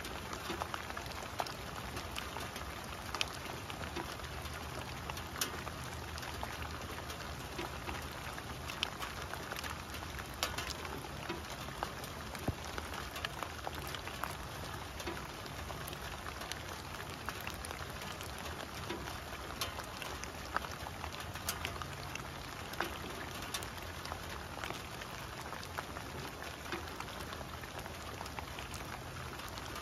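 Steady rain falling on wet fallen leaves and grass: a constant hiss with many separate close drops ticking on the leaves.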